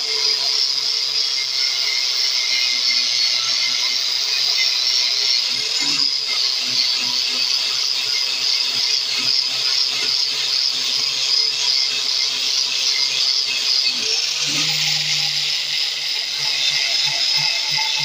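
Angle grinder running with an abrasive disc, grinding rust off a steel sickle blade: a steady high whine over a loud grinding hiss. The motor's pitch briefly sags twice, about six and fourteen seconds in, as the disc is pressed into the metal.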